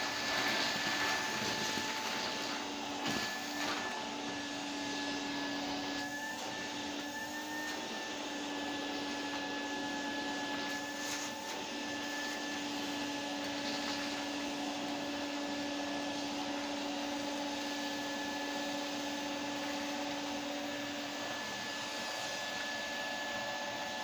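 A Henry canister vacuum cleaner runs steadily with a whining motor hum. Its bare metal wand, floor head removed, sucks small paper pieces off a carpet, and there are a few short clicks.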